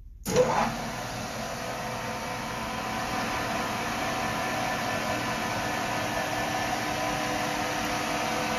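Metal lathe switching on with a sudden jolt about a quarter second in, then running steadily at 530 RPM with a GMC 302 inline-six crankshaft spinning in its chuck. The running sound is a steady whir with a few held tones from the lathe's drive, building slightly over the first seconds as the spindle comes up to speed.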